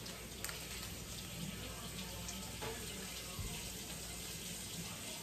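Kitchen faucet running steadily into the sink as a stenciled, etched piece is rinsed under it, with a couple of faint knocks.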